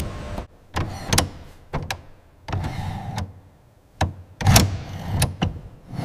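Compressed air hissing from a handheld pressure-gauge nozzle, cutting off about half a second in. Then a series of mechanical clicks, clunks and short sliding sounds from aircraft cockpit controls being worked, the loudest about four and a half seconds in.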